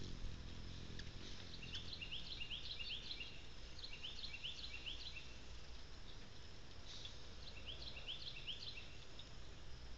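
Runs of short, high, rising chirps, five or six quick notes at a time, repeating every couple of seconds, over a steady low outdoor rumble.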